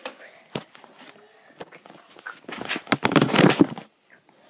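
Handling noise from the phone being moved against clothing: a single click about half a second in, then a loud burst of rustling and knocking lasting about a second, near the end.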